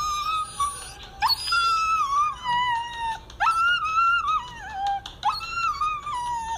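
A husky-type dog wailing in four long drawn-out calls, each jumping up sharply in pitch and then sliding slowly down.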